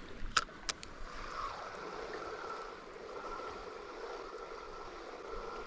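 Creek water running in a steady rush, with two short sharp clicks about half a second in.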